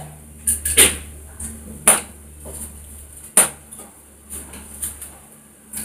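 Whole spices being dropped by hand from a steel plate into a kadai of hot oil: a series of small, sharp clinks and clicks, the loudest about two and three and a half seconds in.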